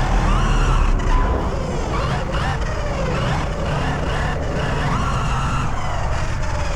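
High-powered electric RC cars running, their motors whining in pitches that rise and fall with the throttle over a steady low rumble.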